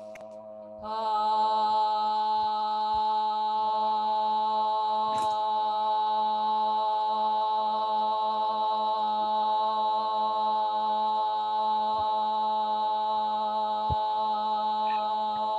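A woman chanting the syllable 'ah' as one long, steady held note, starting about a second in after a pause for breath.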